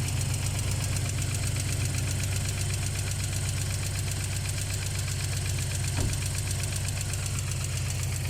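ZMZ-409 four-cylinder petrol engine idling cold, with a fast, even ticking knock from the valve train. The owner suspects a hydraulic lash adjuster, since the knock is there when cold and goes away once the engine is warm. A single brief click comes about six seconds in.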